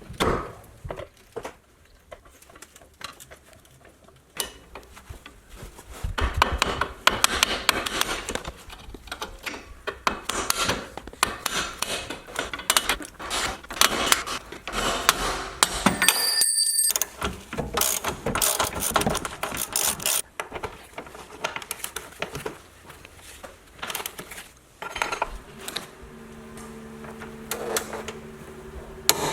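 Hand tools working on a car's front suspension: irregular metal clinks, knocks and scraping, busiest through the middle. A steady hum comes in near the end.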